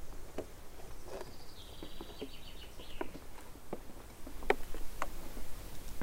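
Footsteps in dry sand, soft crunches about every half second, the loudest about four and a half seconds in. About a second in, a small bird sings a quick descending trill of high notes lasting under two seconds.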